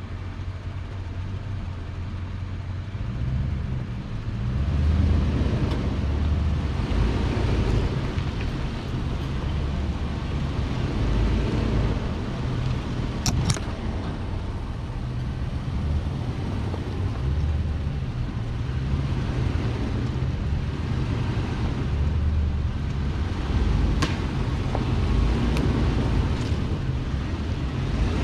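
Off-road vehicle engine running at low speed as it crawls along a rutted dirt trail, a steady low rumble that picks up about four seconds in as the vehicle gets moving. Two sharp snaps or clicks cut through, one about halfway through and one near the end.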